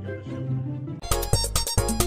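Background music: a soft melodic tune that switches about a second in to a louder, livelier track with a sharp, steady beat.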